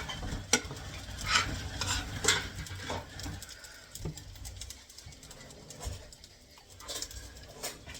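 A spoon scraping and stirring fried rice in a frying pan, with light sizzling underneath. Several sharp scrapes come in the first three seconds, then it goes quieter with only a few light clicks.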